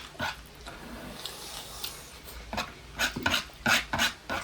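Close-up eating sounds: chewing and crunching into food, with a run of sharp, loud crunches in the second half.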